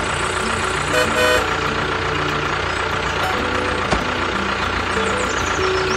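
Tractor engine running steadily, with a simple tune of short held notes playing over it.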